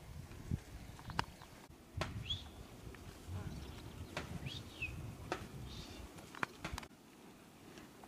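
Grazing cattle: scattered sharp clicks and a low rustling as they crop grass and move. A few short high bird chirps come through, the clearest about two seconds in and again around four and a half seconds.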